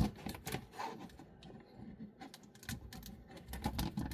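Light clicks and rubbing of plastic parts as a transforming robot figure and its add-on weapon pieces are handled and flipped over, with a sharper click at the start.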